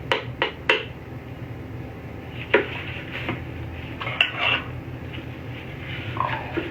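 A spoon clinking against a dish while barbecue sauce is scooped and spread: a quick even run of taps, about three a second, ending about a second in, then a few separate knocks and clinks.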